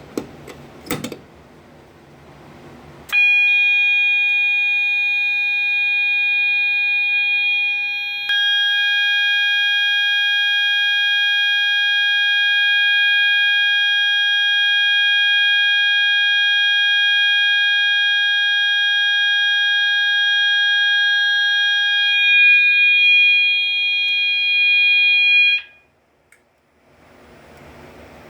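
A couple of clicks, then a System Sensor MA-1224 fire alarm horn sounding a steady, continuous 800 Hz tone for about twenty seconds before cutting off suddenly. The horn has been set off by the pull station.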